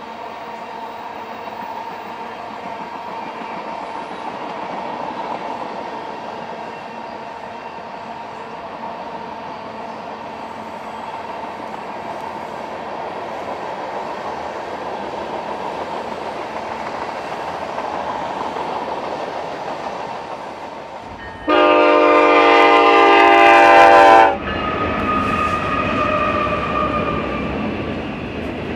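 Long freight train rolling by, a steady rumble of wheels on rail with a faint steady whine. About three-quarters of the way through, a diesel locomotive air horn sounds one loud chord lasting about three seconds, and it stops abruptly. Then comes the closer, busier clatter of freight cars passing.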